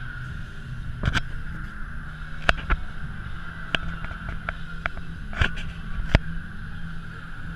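Steady low outdoor rumble and hum, with several sharp knocks and clicks at irregular spacing.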